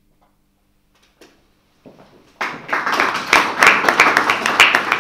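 Audience applauding: a short silence, then many people start clapping about two and a half seconds in.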